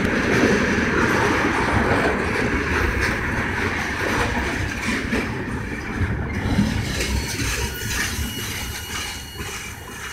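Freight train hopper cars rolling past, steel wheels running on the rails. The sound fades over the last few seconds as the end of the train passes and draws away.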